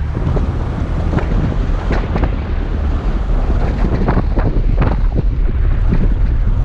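Toyota FJ Cruiser driving through deep sand: a steady low rumble with wind buffeting the microphone and frequent short knocks and rattles.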